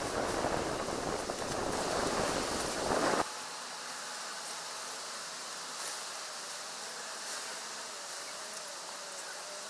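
Outdoor noise: a loud rough rustle for about three seconds that cuts off suddenly, then a quieter steady hiss with a faint steady hum.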